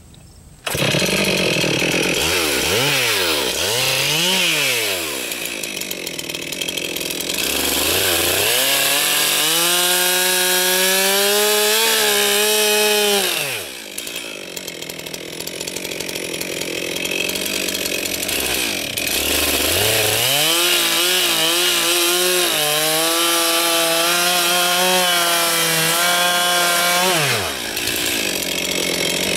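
Stihl 441 Magnum two-stroke chainsaw that comes on suddenly about a second in and revs up and down, then runs at a steady high pitch through two long stretches, each several seconds, while cutting into an oak round.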